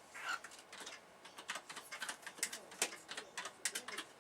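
Irregular light clicks and taps, with a soft cockatiel chirp near the start.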